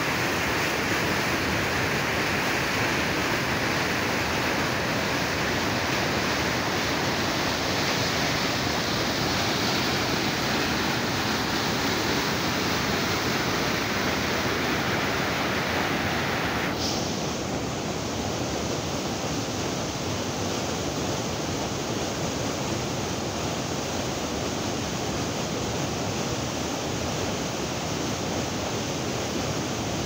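Waterfall and rocky mountain torrent rushing: a steady, dense noise of falling water. A little over halfway through it changes abruptly to a slightly softer, duller rush.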